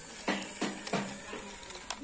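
Toy RC excavator's small electric motors whirring in short bursts, three in the first second, as the arm swings a bucket of gravel over the dump truck, over a steady high-pitched whine.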